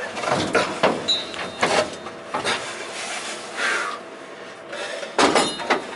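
Metal parts clanking and scraping as a bolted part is worked loose by hand: a run of irregular knocks and short scrapes, with a louder cluster of clanks near the end.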